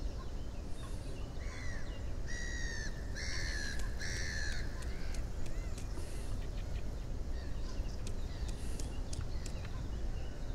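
A crow cawing four times in quick succession about two seconds in. Faint chirps of small birds and a steady low rumble go on underneath.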